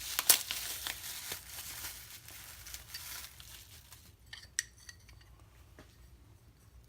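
Packaging crinkling and rustling as a set of 1911 pistol grips is unwrapped, then a few light clinks as the grip panels are handled, the sharpest about four and a half seconds in.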